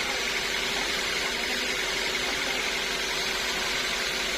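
Sawmill machinery running steadily, a constant hum with a faint steady whine and no change in load.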